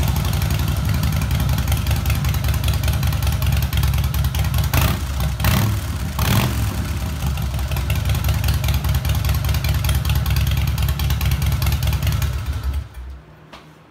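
2001 Harley-Davidson Deuce's Twin Cam 88B V-twin idling just after starting, blipped a few times around the middle, then switched off near the end.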